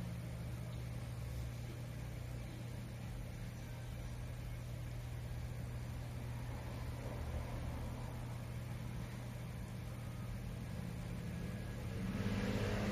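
Steady low electrical-sounding hum with an even background hiss. Near the end a louder sound with several low tones comes in.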